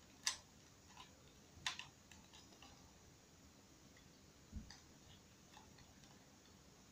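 Near silence broken by a few sharp plastic clicks from a small pink hair-styling tool being handled, the two loudest about a quarter second and a second and a half in, with fainter ticks between. A soft low thump follows about halfway through.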